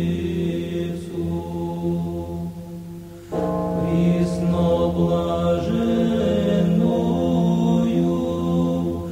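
Sung liturgical chant with long held notes. The voices fade and a new phrase begins about three seconds in.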